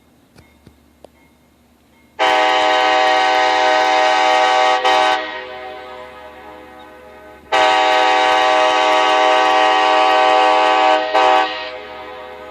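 Nathan K5LA five-chime locomotive air horn sounding two long blasts of about three seconds each, the second followed by a brief short tap; each blast trails off in a long echo. A few faint clicks come before the first blast.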